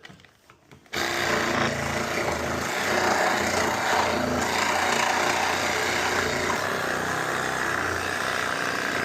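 A power tool running steadily as it cuts at a snowmobile's metal sway bar, starting about a second in.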